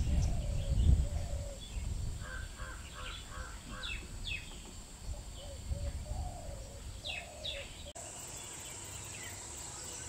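Birds calling in open country: scattered short, falling chirps and a quick run of repeated notes, over a steady high-pitched drone. A low rumble fills the first second or two.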